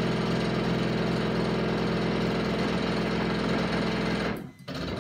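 Monoprice Maker Select Plus 3D printer's stepper motors driving the axes to their home positions: a loud, steady buzzing drone that stops about four seconds in, followed by a brief second burst near the end. The owner judges that it doesn't sound good.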